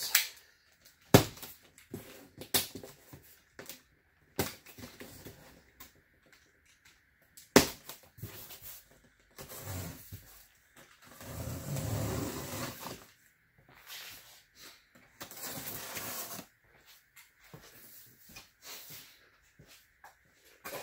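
Cardboard shipping box being opened and handled: several sharp knocks and taps in the first half, then stretches of scraping and rustling.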